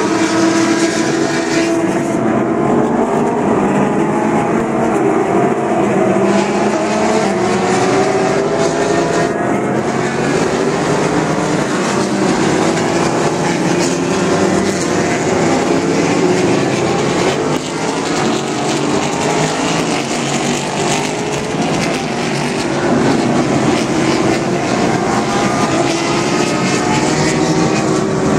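Several race car engines running at racing speed around the circuit, heard together as one continuous loud sound in which many engine notes rise and fall as the cars accelerate and change gear.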